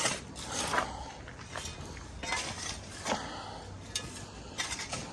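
Scattered light clinks and clatters of small hard objects being handled, several short sharp knocks at irregular intervals.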